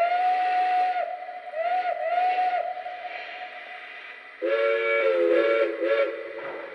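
Onboard sound-system steam whistle of a Lionel Pennsylvania L1 Mikado O-gauge model locomotive: a single-note whistle blows a long blast and then shorter toots. About four and a half seconds in it changes to a deeper, multi-note chime whistle, sounded in several short toots, as the engine steps through its whistle variations.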